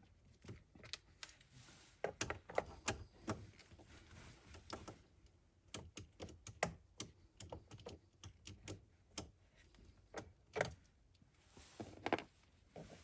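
Faint, irregular clicks and taps of a 7/32 socket on a screwdriver handle, turning out the screws under the steering-column cover.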